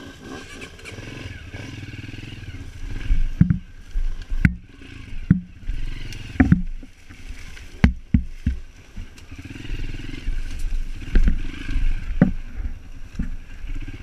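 Off-road motorcycle engine running at low revs on a rough dirt trail. From about three seconds in, repeated sharp knocks and thumps come as the bike jolts over ruts and roots.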